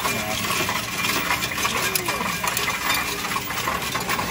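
Coins pouring into a Coinstar coin-counting kiosk and running through its counter, a steady continuous clinking and rattling of many small metal clicks as the coins are counted.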